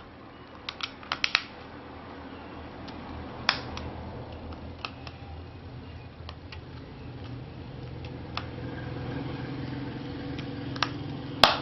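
Sharp plastic clicks from a computer keyboard's keycaps being snapped on and pressed: a quick run of four or five about a second in, then single clicks every second or two, the loudest near the end, over a low steady hum.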